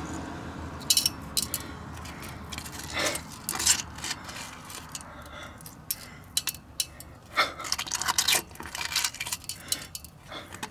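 Loose chunks of broken metal clinking and scraping against the inside of a Chrysler 9.25 rear differential housing as they are picked out of the pinion bearing bore by hand: irregular sharp metallic ticks. The debris is left over from the differential's earlier failure.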